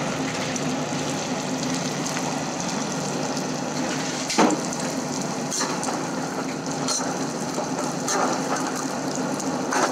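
Pav bread pieces deep-frying in hot oil in a kadhai: steady sizzling and bubbling, with a few light clinks of a metal slotted spoon against the pan, the clearest about halfway through.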